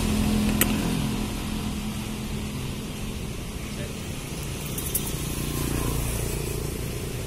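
Street traffic rumbling steadily. A passing vehicle's hum slides down and fades about a second in, and there is a single sharp click just before it.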